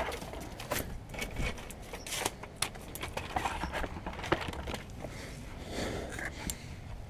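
Soft rustling and scattered light clicks of clothing and handling, with a low rumble underneath, as a dropped phone is picked up off the asphalt.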